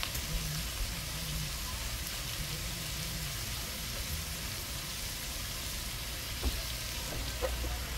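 Sliced carrots and onion sautéing in a pot, a steady sizzle with a low hum underneath and a light tap near the end.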